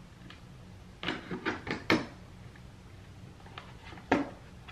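Knocks and clatter of a monitor stand's base being handled and pressed onto the monitor: a quick run of about four knocks about a second in, then one sharp knock near the end.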